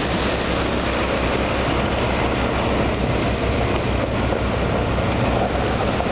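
Tractor engine running steadily while towing a passenger trailer through the shallow surf, with a steady rushing noise of water and wind over it.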